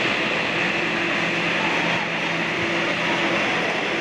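Steady rushing hum of the ventilation blowers that keep an air-supported sports dome inflated, with a constant low tone underneath.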